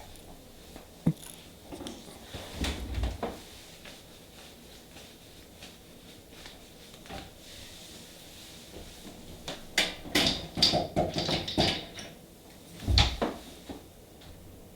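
Nail polish bottles being picked through and handled: scattered short knocks and clicks, a few early and a busier cluster about ten seconds in.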